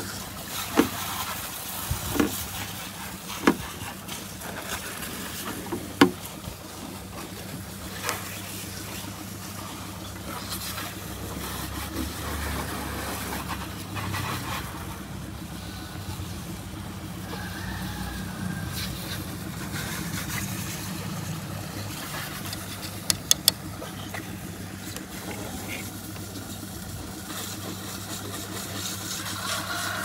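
Steady low hum like an idling engine, with scattered sharp clicks and taps as the model dump truck's parts are handled, and a quick run of three clicks later on.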